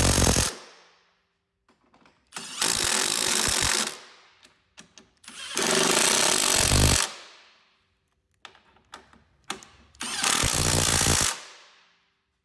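Cordless impact driver hammering in short bursts as it runs down the steering post mount bolts: one burst stops about half a second in, then three more of about a second and a half each follow, with pauses between.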